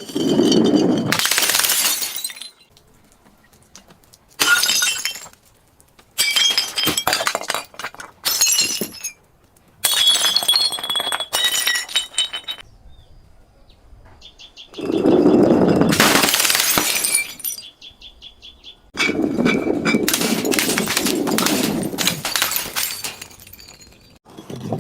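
Glass bottles breaking and shattering again and again, in about eight loud bouts, with shards tinkling and ringing between them.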